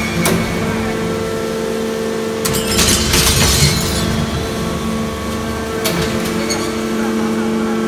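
Hydraulic scrap-metal shear running: a steady hum from its hydraulic power unit as the blade cycles, with a burst of scrap metal clattering about two and a half to four seconds in and short metallic clanks near the start and about six seconds in.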